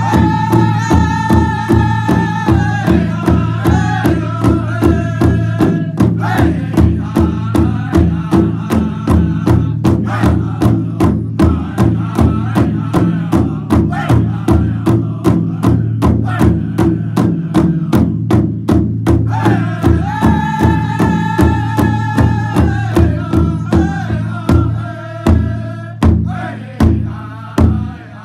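A Native drum group singing: several men strike a large shared drum in a steady beat of about two to three strokes a second while singing together in high voices, in phrases that step down in pitch. Near the end the steady beat gives way to a few spaced, harder strikes.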